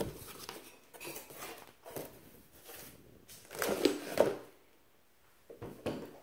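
Cardboard box flaps rustling and scraping as the box is opened and a metal apple peeler is lifted out, loudest about four seconds in; a short knock near the end as the peeler is set down on the wooden table.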